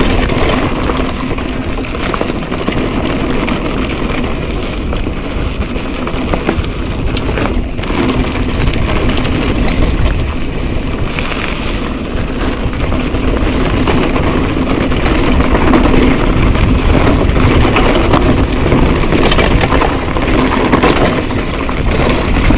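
Mountain bike rolling fast down a rocky dirt trail: tyres crunching over loose stones with many sharp clicks and knocks, under heavy wind rumble on the GoPro's microphone.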